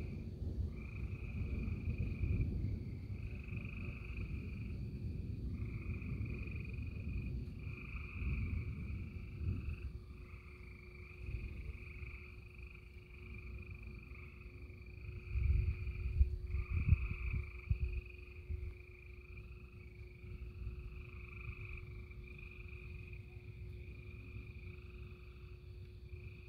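A chorus of frogs calling, overlapping trilled calls about a second long repeating on and on. Under it run low rumbles and knocks, loudest about halfway through.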